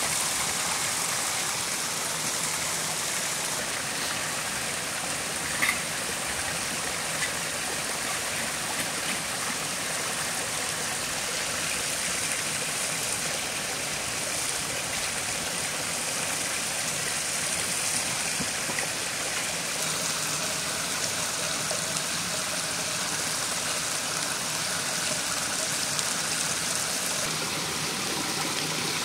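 Forest stream running with a steady rushing and trickling of water, with one sharp snap about six seconds in.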